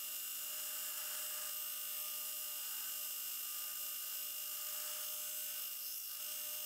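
Brodbeck belt grinder running steadily with a high whine, with a steel knife blade held against the belt to grind its profile, throwing sparks near the end.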